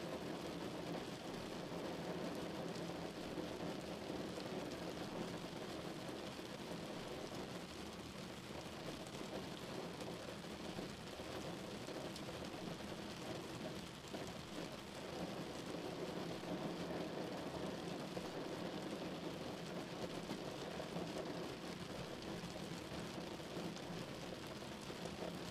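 Steady noise of a car driving in rain, heard from inside the cabin: rain on the car and its tyres on the wet road, with a low engine hum underneath.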